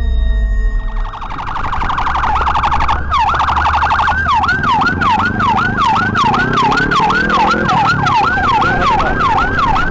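Ambulance siren starting about a second in as a fast warble, then switching near the middle to a slower yelp of about two sweeps a second. Beneath it a vehicle engine rises in pitch as it speeds up, then drops.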